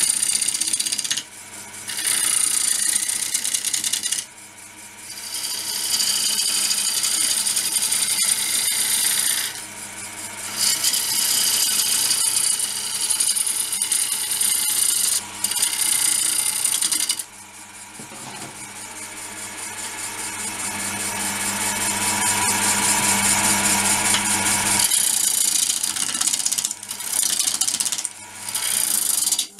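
Wood lathe turning a bowl from green ash, a heavy cutter ground from a drill bit shearing off long shavings. It goes in a series of cutting passes several seconds long, with short breaks between them, over the lathe's steady hum.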